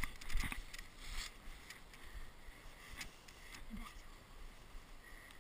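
Handling noise on an action camera as it is moved and set down: a few knocks and rubs in the first second or so, then a faint low wind rumble.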